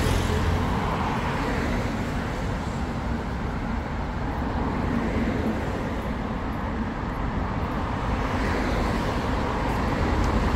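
Steady city road traffic: cars and other vehicles passing on the street.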